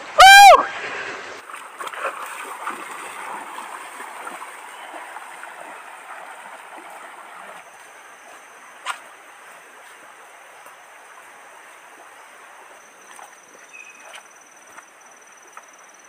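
Stream water running over rocks, slowly fading. Just after the start comes a short, very loud pitched call that rises and falls in pitch, and from about halfway a thin, steady high tone sits above the water.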